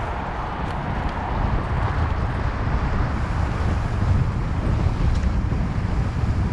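Wind buffeting the microphone: a steady, gusty low rumble with a broad hiss over it.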